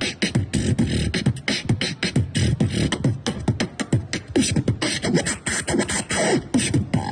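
Human beatboxing through a microphone and small amplifier speaker: a fast, dense beat of deep kick sounds that drop in pitch, mixed with sharp snare and hi-hat clicks made with the mouth.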